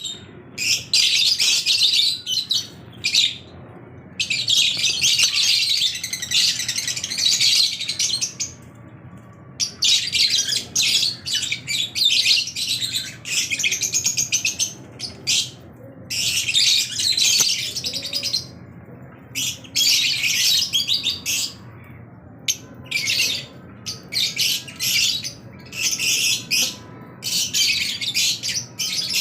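Lovebirds chattering in rapid, high-pitched chirps, in bouts lasting from under a second to about four seconds with short pauses between.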